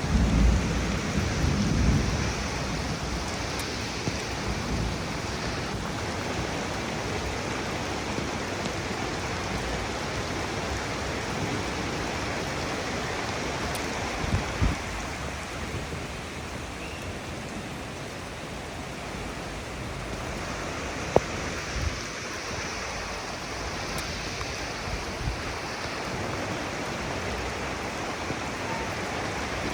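Steady rain falling, with a low rumble of thunder dying away over the first two seconds and a few sharper drop hits standing out near the middle.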